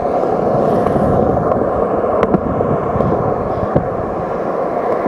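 Skateboard wheels rolling over a concrete skate park surface: a steady, loud rumble, with a couple of sharp clicks along the way.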